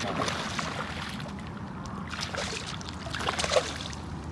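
Hooked smallmouth bass thrashing and splashing at the water's surface as it is played toward the bank. The splashes come irregularly over a steady low rumble, and the loudest is about three and a half seconds in.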